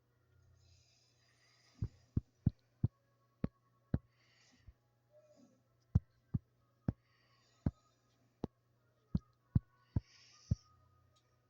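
A series of about fifteen sharp taps at irregular intervals, starting about two seconds in, with faint hissing between them.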